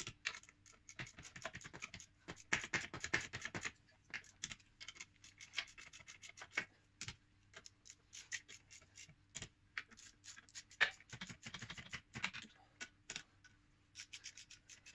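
Ratchet clicking in quick runs with short pauses between, from a torque wrench tightening the clutch pressure plate bolts to their torque setting.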